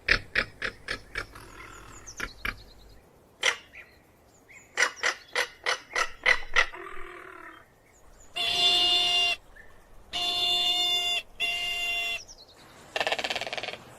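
Crested caracara calling: two runs of dry, rapid clacking notes, about five a second, followed by three harsh, nasal calls of about a second each.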